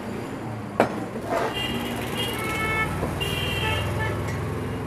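A chef's knife chops once on a cutting board about a second in. Then vehicle horns toot on and off over a steady hum of street traffic.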